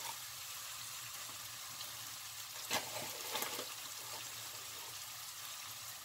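Ham and tomato sofrito sizzling gently in a frying pan, a steady quiet hiss, with a couple of soft taps near the middle as flour is tipped in.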